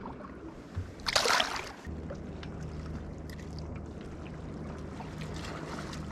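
A short loud splash of water about a second in, then a small motor switches on and hums steadily and low, with a few light clicks over it.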